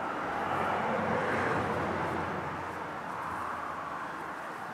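A passing vehicle: a swell of engine and road noise that builds to a peak about a second and a half in, then fades away.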